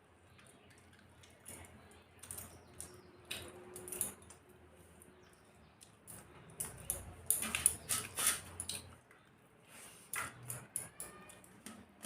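Mouth sounds of someone eating a rice meal: chewing and wet lip smacks in short scattered bursts, busiest and loudest about seven to eight and a half seconds in.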